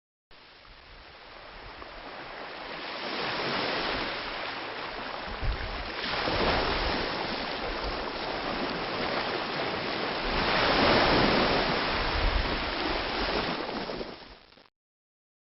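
Ocean waves breaking on a beach: a rushing wash of surf that fades in and swells with each wave, loudest about six and eleven seconds in, then cuts off abruptly near the end.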